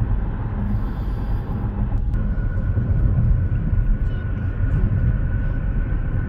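Steady road noise inside a car at highway speed: a low rumble of tyres and engine. A faint, steady high whine joins about two seconds in.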